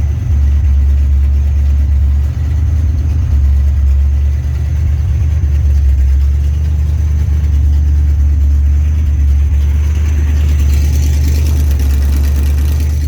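Freshly rebuilt Chevrolet 327 small-block V8 in a 1965 Impala, bored .060 over, running steadily at idle with a deep, even rumble. Its exhaust is not yet welded up.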